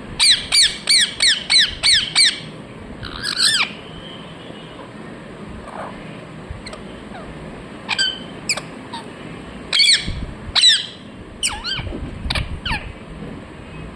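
Ringneck parrot squawking: a quick run of about seven sharp, downward-sliding calls in the first two seconds, then after a lull of a few seconds, scattered single and paired squawks.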